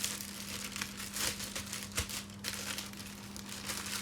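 Plastic packaging and film crinkling in irregular crackly bursts as a new iPad battery is handled. A steady low hum runs underneath.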